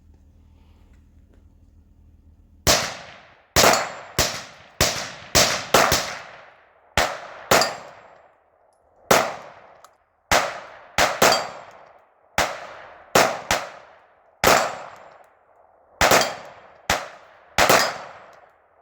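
Beretta M9 9mm pistol being fired: a string of about twenty sharp shots, irregularly spaced with some quick pairs, each ringing off briefly, starting a few seconds in.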